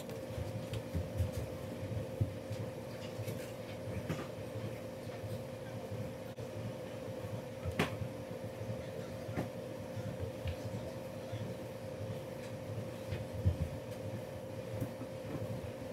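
Quiet room tone: a steady electrical hum over a low, uneven rumble, with a few faint clicks.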